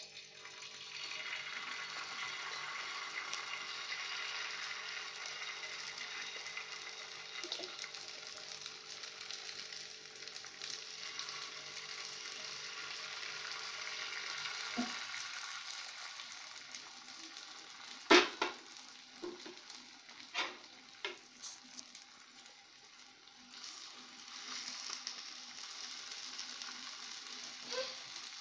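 Beaten egg with chopped onion and tomato sizzling as it is poured into hot oil in a frying pan: a steady frying hiss. A few sharp knocks come about two-thirds of the way through, the loudest sounds here, and the sizzle swells again near the end.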